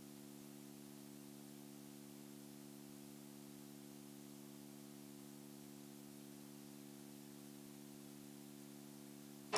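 Near silence: a faint, steady hum with a low hiss and no other events.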